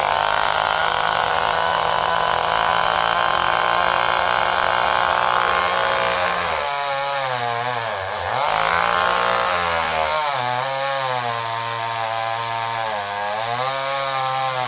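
Small chainsaw running at high revs, steady at first. From about six seconds in, its revs dip and recover again and again, with one deep drop near the middle, as the saw bogs under load in the cut.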